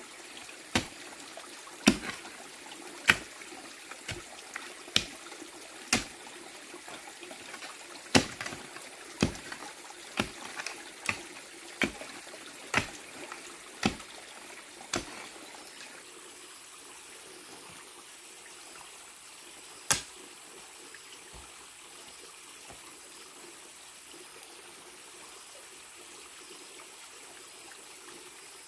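Stream water running steadily, with a series of sharp knocks, roughly one a second, that stop about halfway through, followed by a single knock a few seconds later.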